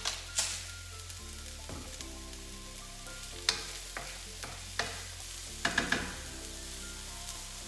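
Sliced mushrooms and onion frying in olive oil in a pan with a steady sizzle, broken by a few sharp knocks or scrapes of a utensil moving them in the pan.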